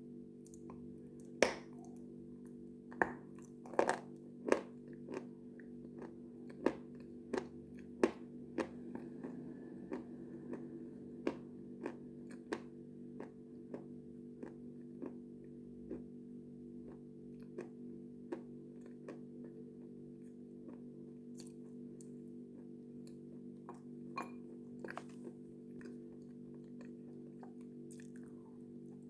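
A person biting into and chewing something brittle, with sharp, crisp crunches. The crunches come thick and loud in the first ten seconds and more sparsely after that, over a steady low hum.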